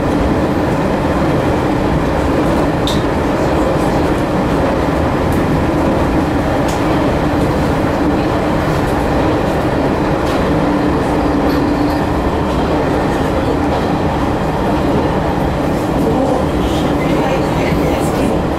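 Sanriku Railway 36-100 series diesel railcar running along the line, heard from inside at the front of the car: a steady drone of engine and wheels on rail, with a few faint clicks.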